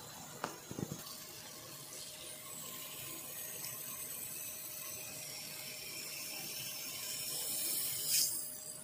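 Faint steady fizzing of gas bubbles in the electrolyte during electrolytic rust removal of a steel putty knife, with a few light clicks about half a second in. Near the end there is a louder splash of liquid as the blade is lifted out.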